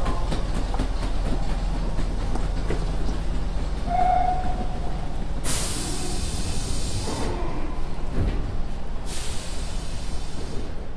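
Nagoya Municipal Subway 3000 series electric train running with a steady low rumble. A short squeal comes about four seconds in, then two loud hisses of compressed air, the first lasting nearly two seconds and the second about one.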